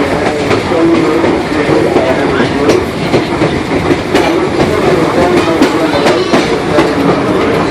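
Railroad passenger car rolling along the track: a steady rumble with the clickety-clack of the wheels over rail joints.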